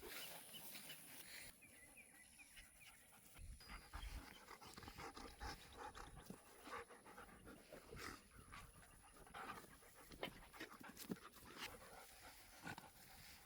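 Faint dog panting, with scattered soft clicks and rustles.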